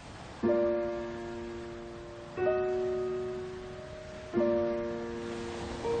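Background music: a piano playing slow chords, each struck and left to ring out, a new chord about every two seconds.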